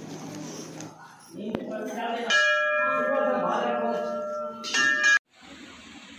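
A temple bell rings in steady, sustained tones over a murmur of voices. It is struck again near the end, then cuts off suddenly.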